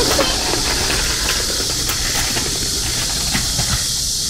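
Street ambience by a playground: a steady high-pitched hiss over a low rumble, with a few light taps.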